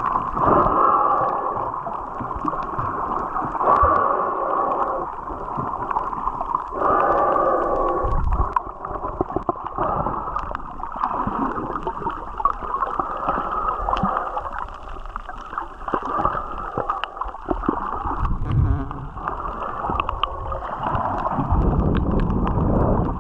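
Muffled underwater noise picked up by a camera held below the surface: a low water rush and gurgling that swells and fades several times, with a few faint sharp ticks.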